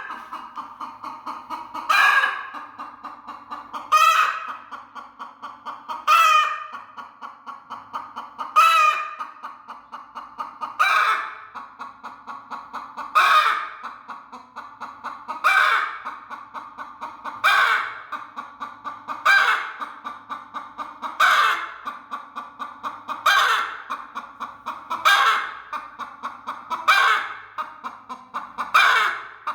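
Broody hen guarding her eggs, giving a fast run of low, pulsing clucks with a sharp, loud call about every two seconds.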